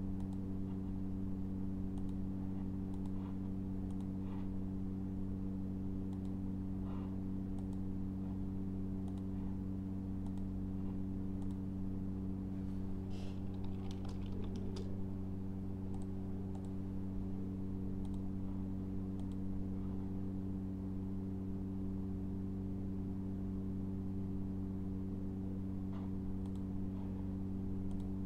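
Steady low electrical hum, with faint computer keyboard typing and mouse clicks scattered over it and a short run of typing about halfway through.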